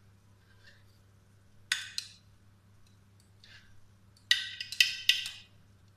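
Light knocks and clinks of kitchenware against an oven dish as roasted zucchini is laid into it: one sharp knock about two seconds in, then a quick run of clinks near the end.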